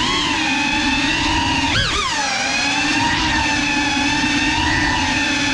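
GEPRC Cinelog 35 ducted cinewhoop drone's motors and propellers giving a steady buzzing whine. The pitch wavers with the throttle and surges up and back down sharply about two seconds in.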